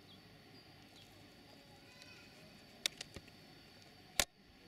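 Quiet, steady open-water background aboard a kayak, broken by a few sharp clicks or knocks about three seconds in and one louder knock a little after four seconds.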